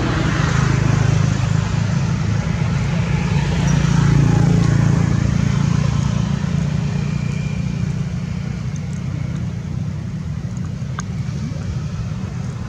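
Steady low engine rumble, like a motor vehicle running close by, swelling about four seconds in and then slowly easing.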